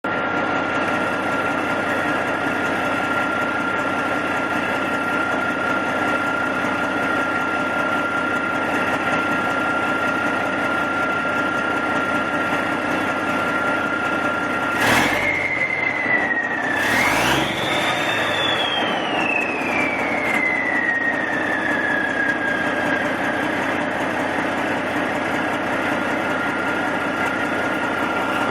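Mechanical Cummins N14 straight-six diesel with a nearly straight-piped exhaust idling, its turbocharger giving a steady high whistle. About halfway through the engine is briefly revved twice: the turbo whistle shoots up in pitch, then slowly winds back down to its idle note as the engine settles.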